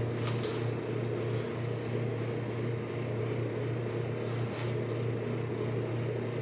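Steady low hum of a running machine, with a few faint light clicks near the start and around the middle.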